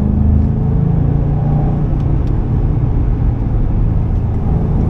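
2005 Ford Mustang GT's 4.6-litre V8 running at a steady cruise through bends, heard inside the cabin with road and tyre noise. The engine note dips slightly just after the start, then holds steady.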